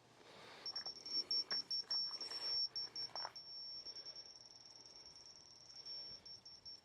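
Electronic level beeping in a single high tone against a post: quick broken beeps at first, then an almost steady tone from about halfway through, the signal that it reads plumb. Light knocks of handling in the first few seconds.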